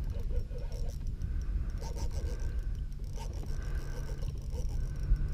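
Steady low wind rumble on the action-camera microphone, with faint scraping and rubbing from the fishing rod and reel under load while a large redfish pulls against the line.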